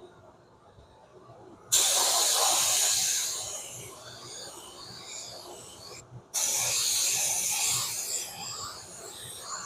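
Paint being sprayed onto a repaired alloy wheel: a hiss that starts suddenly about two seconds in, breaks off briefly about six seconds in, then starts again.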